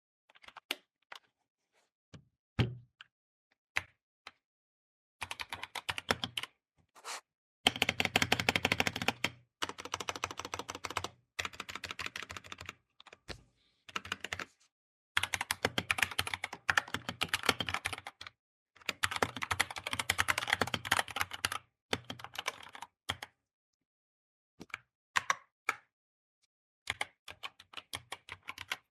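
Typing on a DAGK K87 Pro keyboard. Scattered single keystrokes and one heavier thud come in the first few seconds, then several long runs of fast key clacks, and a few separate key presses near the end.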